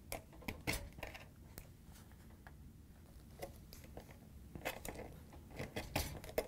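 A sheet-metal dishwasher mounting bracket being worked out of its slot in the metal frame of the dishwasher: light metal clicks and scrapes, bunched near the start and again in the last two seconds.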